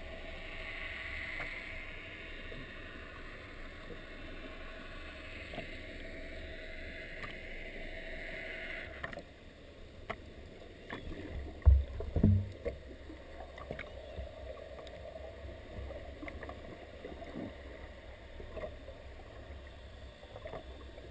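Muffled underwater noise picked up by a submerged camera. A steady hiss cuts off suddenly about nine seconds in, leaving quieter water noise with scattered faint clicks and two loud low thumps about twelve seconds in.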